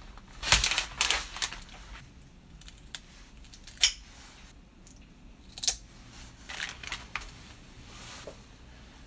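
Plastic film crinkling as it is peeled off a tray of raw chicken, then kitchen scissors snipping through chicken wing tips: two sharp snips about two seconds apart, the loudest sounds. More plastic crinkling follows.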